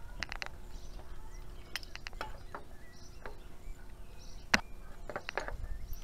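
Scattered sharp clicks and small knocks of hands handling gear, with one louder click about four and a half seconds in.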